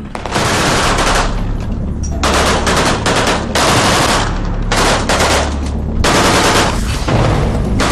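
Sustained automatic fire from Kalashnikov-type assault rifles: about five long bursts, each a rapid stream of shots, with short breaks between them.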